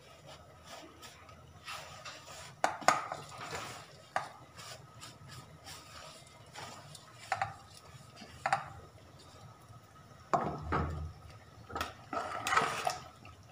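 Irregular metal clinks and scrapes of a steel plate against the rim of an aluminium pressure cooker as fried onions are pushed off it into the pot. A ladle knocks and scrapes in the pot near the end.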